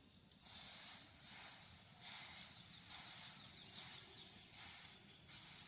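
A cricket chirring steadily in the background, with several short rustling hisses as banana leaves are turned and pressed on a hot tawa.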